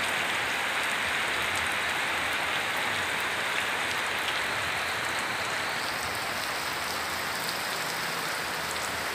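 Heavy rain pouring steadily onto the surface of a pond, an even hiss that does not let up.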